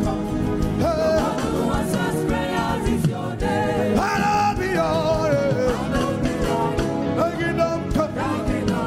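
Live gospel worship song: voices singing over instrumental accompaniment with a steady beat, the worshippers singing along.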